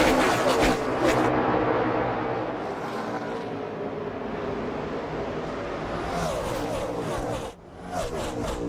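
NASCAR stock cars' V8 engines at racing speed, with pitch lines falling as cars go past, then a steadier engine sound whose pitch rises. The sound drops out briefly near the end, then another loud stretch of engines begins.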